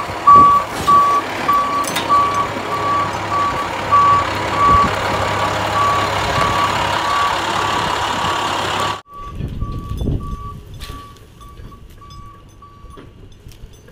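Backup alarm on a flatbed boom truck reversing, beeping steadily about twice a second over the running truck engine. About nine seconds in the sound drops abruptly and the beeping goes on fainter, from farther off, stopping near the end.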